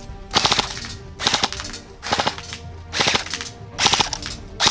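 Airsoft electric rifle (AEG) firing short bursts of BBs, about one burst a second, five in all, each a quick rattle of several shots.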